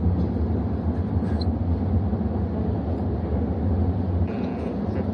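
A steady low rumble, strongest in the deep bass.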